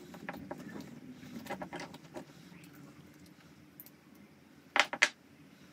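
Light clicks and rustling as an old rechargeable battery pack is pulled out of a device's plastic battery compartment by hand, with two sharp clicks close together near the end.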